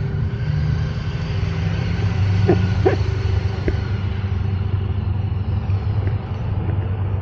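Motorcycle engine idling steadily, a low-pitched running hum, with two short sharp sounds about two and a half and three seconds in.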